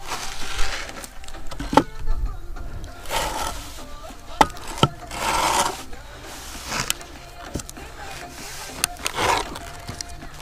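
Wooden screed board with an aluminium level taped along it, dragged in strokes across damp sand: several swishing scrapes with sharp knocks in between, as the sand bedding is levelled for a lean-concrete slab.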